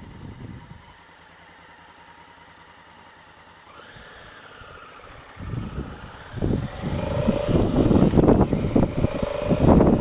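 Honda Africa Twin CRF1000L parallel-twin motorcycle running quietly at low speed, then accelerating from about halfway through. Wind noise on the camera microphone builds up with the speed and becomes the loudest sound.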